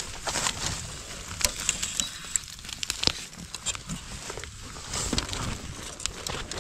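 Dry bamboo twigs and burnt leaf litter crackling and rustling as someone pushes through a bamboo clump and steps on the ash-covered ground, with sharper snaps about one and a half and three seconds in.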